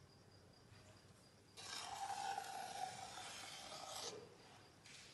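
Metal ladle scraping and stirring thick patisa mixture of besan and sugar syrup in an aluminium pot. The coarse scraping starts about a second and a half in and eases off after about four seconds.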